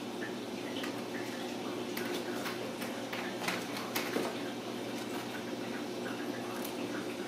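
Ragdoll kittens scuffling on a tile floor: scattered light taps and clicks of paws and claws, busiest a few seconds in, over a steady background hum.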